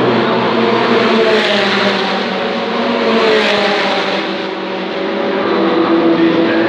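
Race car engines running at speed on the circuit as cars pass, their pitch shifting as they go by.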